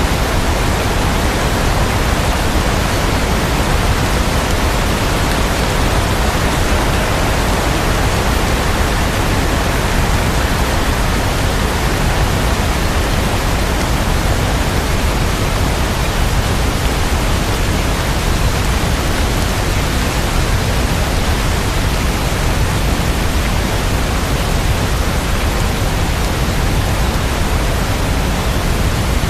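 Steady, unchanging rain noise, an even hiss with no single drops or thunder standing out.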